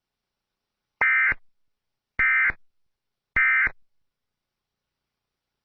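Emergency Alert System end-of-message tones: three short, identical digital data bursts, each about a third of a second long and a little over a second apart. They mark the end of the alert.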